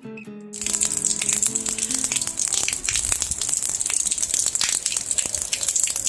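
Heavy rain pouring down, a dense crackling patter that starts about half a second in and keeps on steadily.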